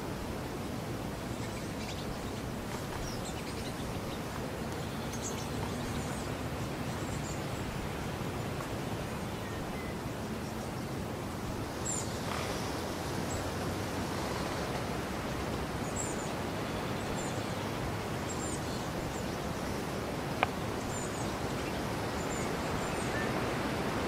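Outdoor ambience: a steady rushing noise with short, high bird chirps scattered through it, and one sharp click near the end.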